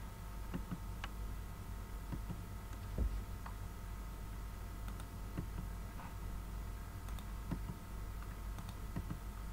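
Computer mouse clicks and keyboard taps, irregular and scattered, with a louder click about three seconds in, over a steady low electrical hum.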